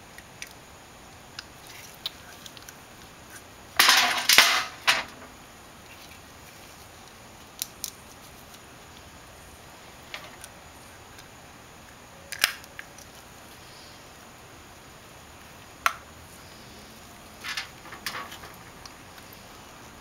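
Hand reassembly of a small-engine carburetor: the plastic float with its new inlet needle being fitted into the carburetor body, giving scattered light clicks and taps of plastic and metal parts. A louder clatter of several quick knocks comes about four seconds in.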